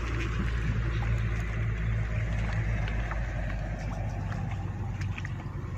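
A steady low engine hum, with a few faint ticks over it.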